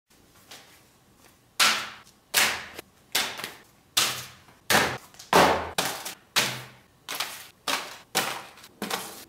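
Paper envelopes and cardboard mailers tossed one after another onto a hard tabletop: about a dozen flat slaps, one roughly every two-thirds of a second, each with a short papery rustle after it.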